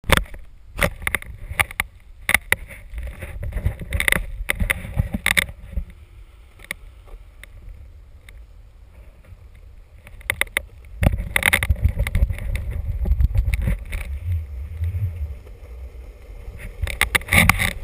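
Longboard wheels rumbling over asphalt, with wind on the microphone and frequent sharp knocks and clicks. The rumble is heavy for the first five seconds, eases off, then comes back strongly about eleven seconds in.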